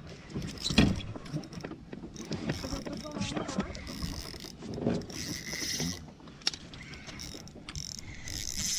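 Spinning reel's drag giving line in short spells as a hooked fish keeps pulling, with a few sharp knocks of handling in the boat.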